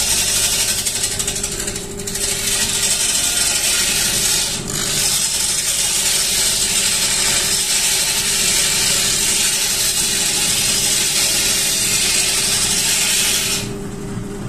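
A hand-held turning tool cutting a long laminated mahogany post as it spins on a lathe: a steady, loud hiss of the cut over the lathe motor's even hum. The cut eases off briefly about two seconds in and stops shortly before the end, leaving the motor hum.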